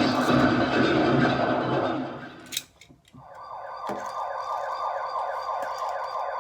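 A loud noisy rush fades away over the first two seconds. After a short near-silent gap, a siren in fast yelp mode starts about three seconds in, its pitch sweeping up and down several times a second, and cuts off near the end.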